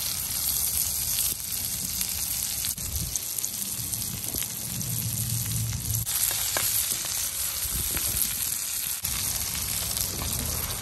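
Chicken breasts frying in butter and oil in a nonstick pan: a steady sizzle with a few light ticks.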